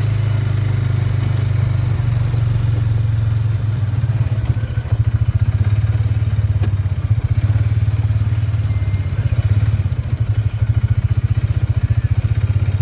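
Engine of a slowly driven vehicle running steadily with a low hum, turning into a fast throbbing from about four seconds in.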